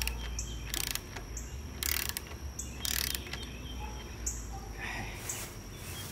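Ratcheting torque wrench tightening housing bolts, in short ratchet bursts about once a second for the first three seconds, then fainter. Birds chirp in the background.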